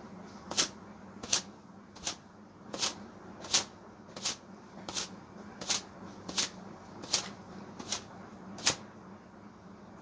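Long wet hair being slapped dry: twelve sharp swishing slaps at an even pace, about one every 0.7 seconds, over a steady low hum.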